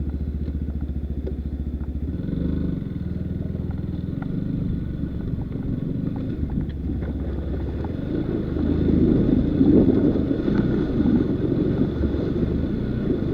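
Enduro dirt bike engine running, with a steady low note that turns louder and rougher about eight seconds in.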